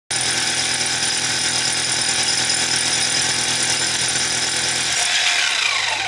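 Milwaukee rotary hammer drilling into a concrete foundation wall with a masonry bit, running steadily. About five seconds in, the heavy drilling sound stops and the motor's whine falls in pitch as it winds down.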